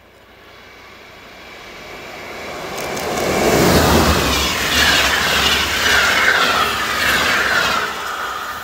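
PKP Intercity EU160 (Newag Griffin) electric locomotive and its passenger coaches passing at speed on snow-covered track. The rush of wheels and churned-up snow builds as the train approaches, peaks about four seconds in, and stays loud with a falling whine while the coaches go by, easing off near the end.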